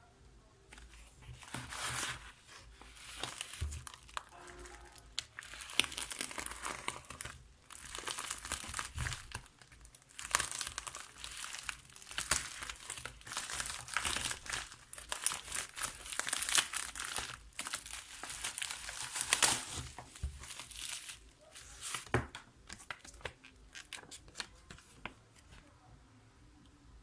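Packaging being handled and opened by hand: repeated crinkling and rustling with tearing, in uneven bursts that die down near the end.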